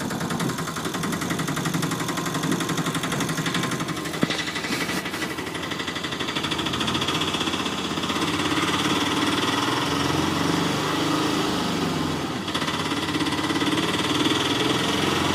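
Small engine running steadily at idle, a rapid rattling beat over a low hum, used as the engine sound of a toy auto rickshaw being pushed along.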